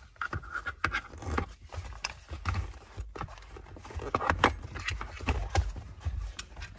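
Rustle and scrape of nylon harness webbing being threaded and pulled through a bucket seat, with scattered clicks and knocks from the harness's metal buckle hardware.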